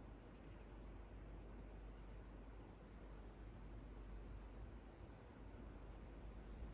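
Faint, steady high-pitched chirring of crickets, an unbroken drone over a low background hiss.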